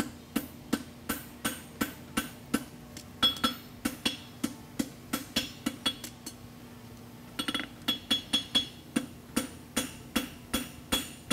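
Farrier's hammer striking a red-hot steel horseshoe on an anvil, about three ringing blows a second as the shoe's edge is forged. The blows pause for about a second midway, then resume with a quick flurry.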